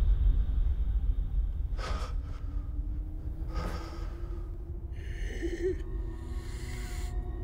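Horror-film soundtrack: a low rumble dies away at the start under a steady low drone, while a frightened man takes two sharp, audible breaths about two and three and a half seconds in. Thin, eerie high tones come in near the end.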